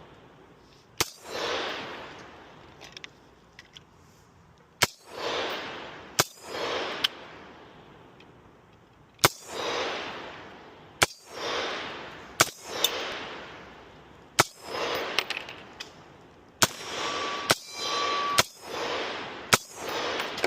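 About a dozen single gunshots fired at an uneven pace, a second or more apart, each followed by a long echo that dies away.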